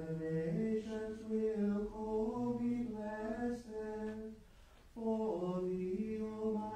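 Unaccompanied liturgical plainchant: slow, held sung notes stepping up and down in pitch, with a short pause for breath about four and a half seconds in.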